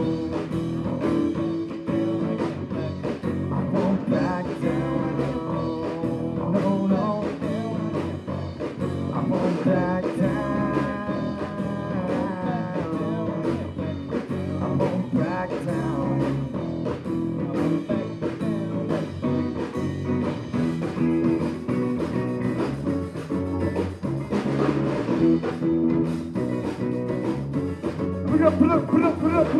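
Live rock band playing an instrumental passage between verses: acoustic guitar, electric guitar, bass guitar and drum kit with a steady beat.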